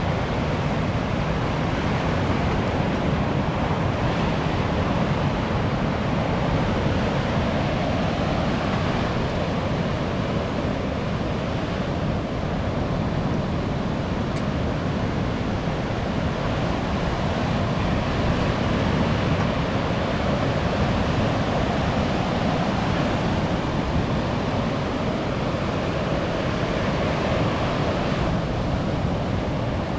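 Sea waves washing onto a beach: a steady rush of surf that swells and eases gently, with some wind.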